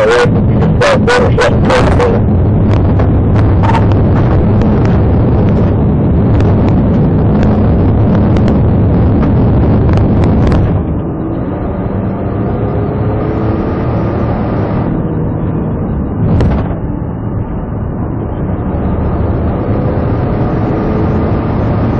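Police car driving fast over a rough dirt track, its engine and road noise full of knocks and rattles. About eleven seconds in, the noise drops and turns smoother as the car reaches paved road, where it carries on with a brief louder burst a few seconds later.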